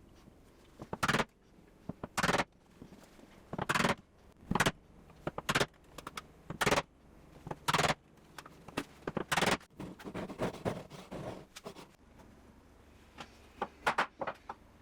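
Sharp knocks of hand tools on wood, about one a second and irregularly spaced, with softer scraping between them in the middle, as a Japanese woodworking joint is cut.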